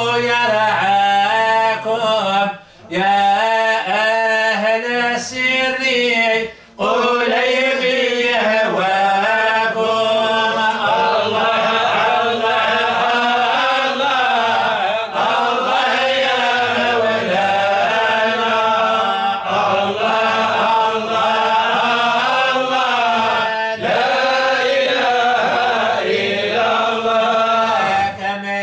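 Unaccompanied male voice chanting a Sufi devotional poem (inshad) in long, wavering, ornamented phrases, with short breath breaks about 3 and 7 seconds in.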